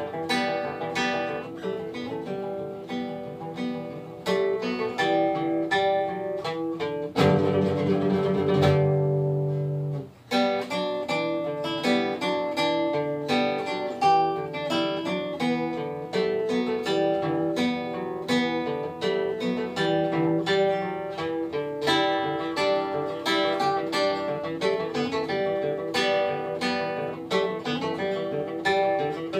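Background music on acoustic guitar: a run of plucked notes. A louder chord rings out about seven seconds in and breaks off briefly near ten seconds before the picking resumes.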